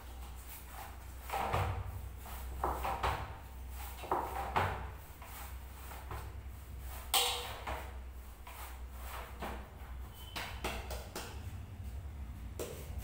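Hands working a ball of roti dough on a steel plate (parat): irregular soft knocks and light clatter of the plate, the sharpest about seven seconds in, over a steady low hum.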